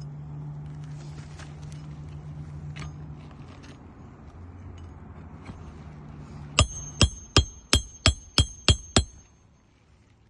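Hammer driving a roofing nail through an asphalt shingle: seven quick, evenly spaced blows, about three a second, each with a bright metallic ring, starting about two-thirds of the way in.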